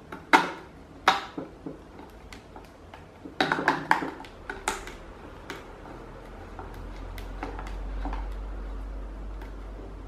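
Plastic clicks and knocks from a Ventisol 20 cm mini desk fan being handled as its head is refitted onto the tilt joint, with a cluster of knocks about three and a half seconds in. A faint low rumble builds in the second half.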